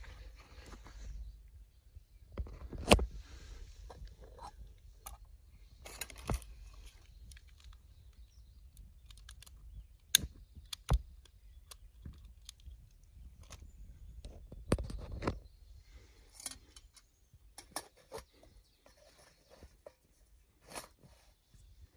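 Aluminium Trangia cookset parts clinking and knocking as they are handled and fitted together around the brass alcohol burner: a string of sharp metallic clanks and clicks at irregular intervals, the loudest about three seconds in.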